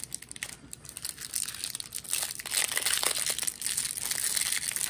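Clear plastic wrapper of a pack of trading cards crinkling and crackling as it is handled and peeled open, getting louder about halfway through.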